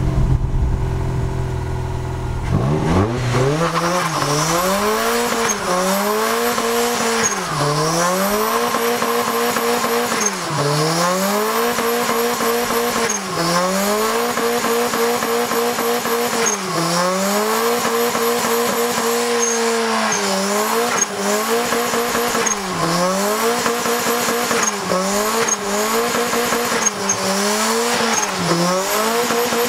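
Turbocharged 1.8-litre four-cylinder of a 1994 Mazda MX5, breathing through a straight-through exhaust, idling for a couple of seconds, then revved up hard into a burnout. It holds high revs, dropping and climbing again every few seconds as the throttle is eased and reapplied, more often near the end, while the spinning rear tyres squeal.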